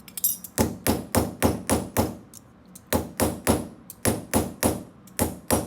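Hammer striking a small piece of sheet metal to flatten it, in quick, even blows of about four a second with a brief metallic ring, pausing for a moment a little after two seconds in.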